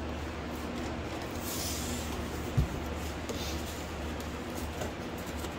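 Cardboard shipping box being handled: a brief rustle of cardboard, then a single dull thump about two and a half seconds in, over a steady low hum.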